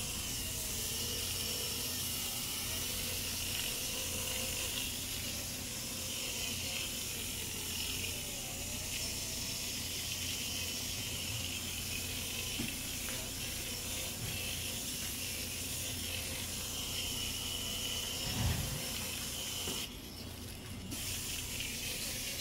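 Hurricane cordless foot drill running steadily, its orange sanding pad buffing callus on a heel, a steady motor whir with a light hiss. A soft knock comes about 18 seconds in, and the sound dips briefly soon after.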